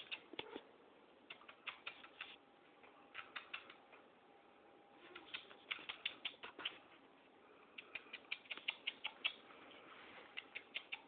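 A cat's claws ticking and scratching in short quick runs of sharp clicks, several runs a second or two apart, as it paws at a door and moves on a tile floor.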